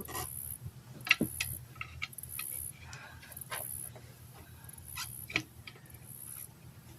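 Tire levers and tire bead clicking and knocking against a wheel rim as the bead is worked off by hand, with a sharp click about a second in.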